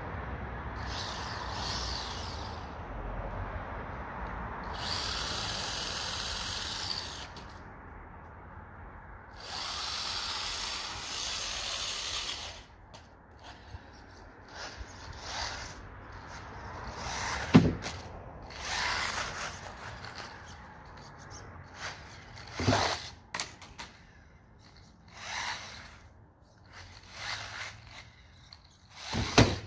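Small electric RC car motor whining in long bursts as the car drives on concrete. In the second half come shorter bursts and several sharp knocks, the loudest about midway.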